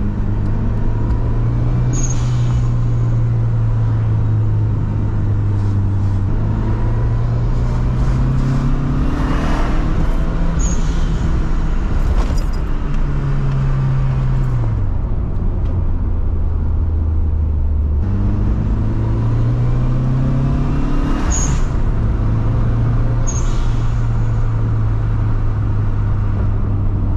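Lancia Delta Integrale Evo 2's turbocharged four-cylinder engine running under way, its revs climbing and dropping back several times as the car is driven. Brief high-pitched chirps come a few times.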